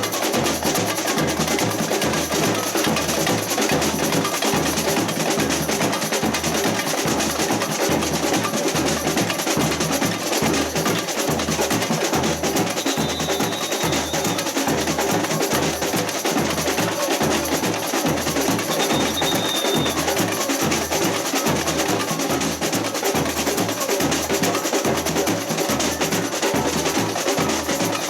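Samba percussion ensemble (batucada) playing, a steady low bass-drum beat under dense drumming.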